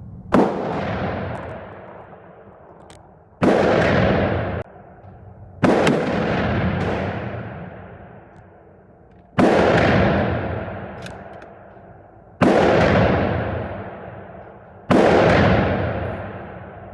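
Six rifle shots from a 6.5 mm Mannlicher-Carcano bolt-action rifle, fired about two to four seconds apart. Each crack is followed by a long echo that dies away over about two seconds.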